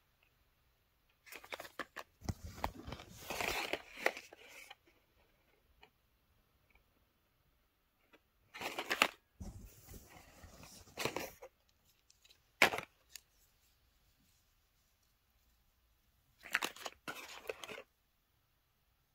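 Hands rummaging in a canvas zippered cosmetic bag and handling small cardboard sample boxes and a glass dropper vial: several short bursts of rustling, with one sharp click about two-thirds of the way in.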